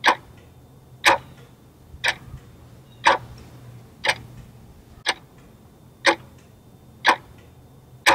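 Clock ticking sound effect: sharp ticks evenly spaced about once a second, over a faint low hum.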